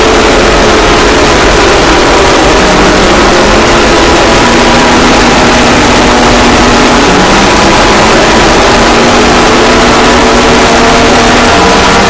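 Emergency Alert System alarm boosted until it distorts: a harsh, clipped wall of noise with steady electronic tones underneath that shift pitch every few seconds.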